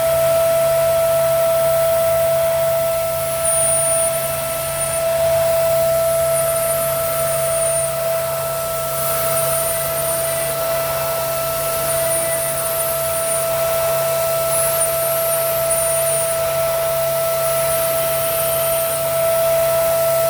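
Gerber Sabre 408 CNC router spindle whining at a steady high pitch, having just spun up to speed, over the steady hum of the vacuum hold-down table and dust extraction. Short high chirps recur about every second and a half.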